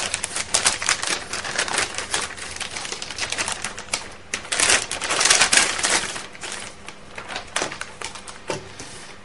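Metallic anti-static bag crinkling and rustling as a motherboard is slid out of it and laid down, a dense run of crackles that is loudest about halfway through.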